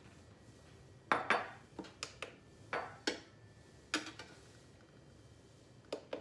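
Clinks and knocks of a glass measuring jug being handled and set on a digital kitchen scale on a tiled countertop: a cluster of about eight sharp strikes, some ringing briefly, then two more near the end.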